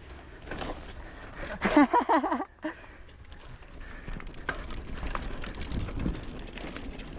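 Mountain bike rolling over a rough dirt trail, with steady tyre rumble and scattered clicks and knocks from the bike. About two seconds in, a short, loud, wavering squeal cuts off suddenly.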